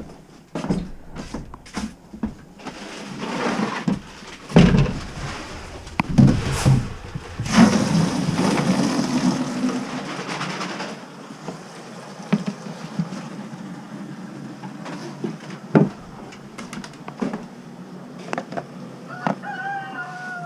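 Chickens in a hen house: scattered knocks and a long rustling stretch of handling, and near the end a drawn-out animal call with a steady then falling pitch.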